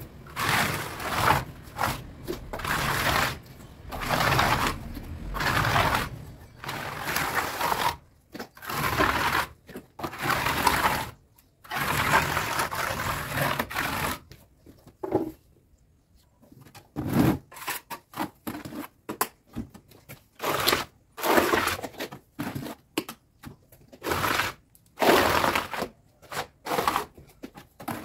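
Gritty scraping strokes of a tool working cement mortar mixed with fine gravel. The strokes come in an uneven rhythm, about a second long in the first half; after a short pause near the middle they turn shorter and sharper.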